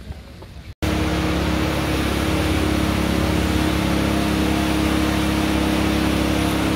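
A machine running steadily: a loud, unchanging mechanical drone with a low hum, which starts abruptly about a second in.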